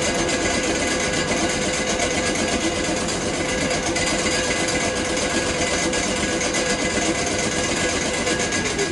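Standing Class 455 electric train's on-board auxiliary machinery running with a steady hum and fine rapid chatter; near the end a tone falls in pitch as the machinery winds down.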